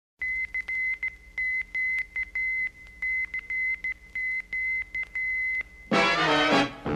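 Morse code sent as a high, steady beep keyed in short and long beats. A brass swing band comes in near the end.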